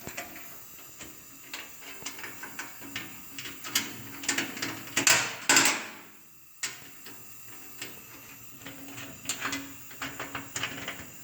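Metal hardware being handled and nuts tightened as a tailgate latch and cable bracket are bolted to a steel tailgate: irregular light metallic clicks and taps, with two short, loud rasping bursts about five seconds in.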